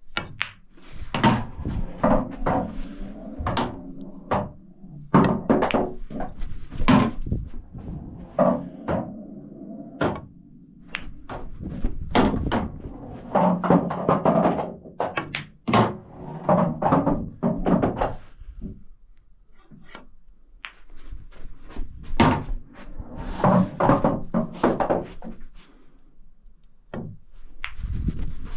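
English pool balls being played in quick succession: cue tip striking the cue ball, sharp clicks of ball on ball, and thunks as object balls drop into the pockets, repeating shot after shot.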